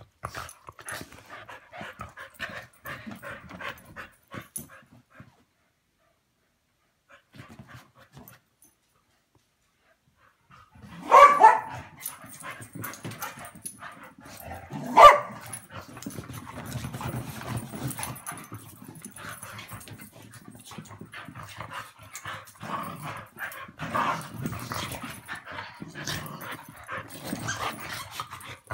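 Small dogs playing and tussling, with scuffling and snuffling, and two loud barks about eleven and fifteen seconds in, followed by ongoing play noise with a low growl-like rumble.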